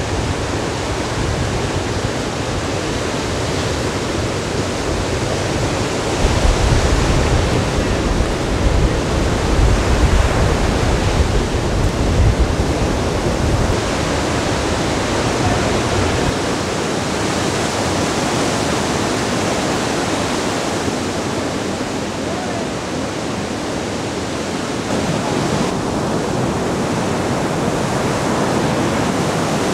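Heavy ocean surf breaking and rushing as a steady roar of whitewater, growing louder and deeper for several seconds about a third of the way in.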